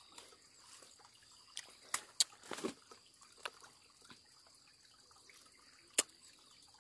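Faint rustling of leaves and a few short sharp clicks as a leafy fruiting branch is handled, over a faint steady high tone.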